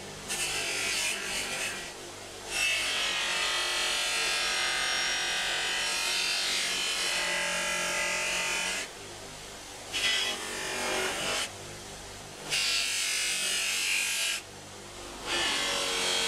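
Bench grinder fitted with a buffing wheel running, with a piece of steel pressed against the spinning buff to polish it. Each contact adds a loud hiss over the steady motor hum, in several long stretches broken by short pauses where only the motor is heard.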